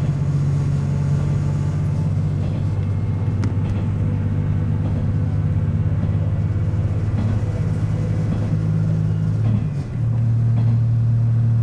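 Tosa Kuroshio Railway 9640 series diesel railcar underway, its engine droning steadily. Near the end the drone dips briefly, then settles at a different pitch.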